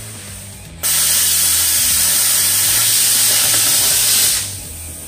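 A loud steady hiss starts suddenly about a second in and cuts off about three and a half seconds later, over background music.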